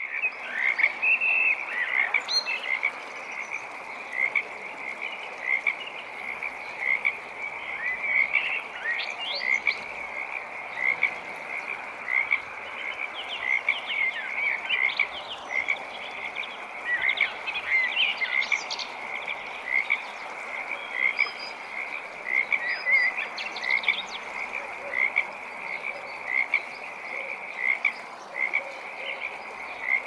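A chorus of frogs calling: many short croaks overlapping at a steady rate around one pitch, with a few higher chirps mixed in through the middle.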